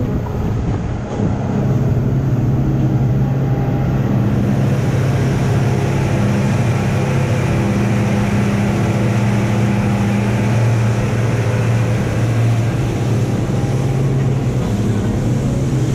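Triple Yamaha 300 outboard motors running steadily at high cruising speed, a low even drone, over the rush of wind and spray from the planing hull.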